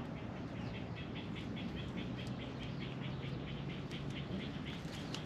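An animal's rapid, evenly repeated high chirping call, about seven short notes a second, lasting about four seconds.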